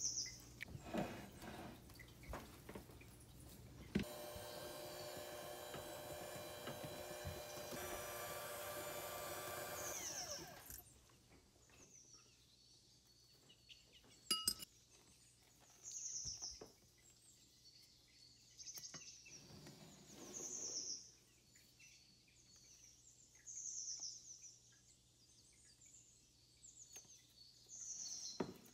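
Electric hand mixer whipping cream in a glass bowl, starting about four seconds in, running steadily with a slight change in pitch, and stopping after about six seconds. A single clink follows in the quieter part, and a recorded background of birds chirps repeatedly throughout.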